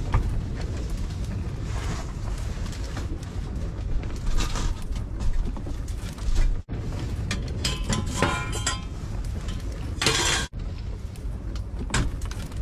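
Strong wind buffeting the microphone as a steady low rumble, with scattered clinks and short rattles, the loudest of them about ten seconds in.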